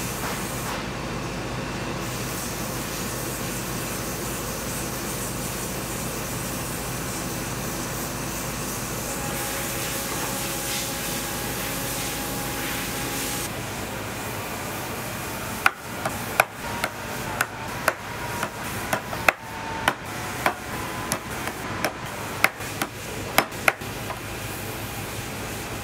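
A workshop machine runs with a steady hum and hiss, then stops. About two seconds later come some fifteen sharp hammer blows, about two a second.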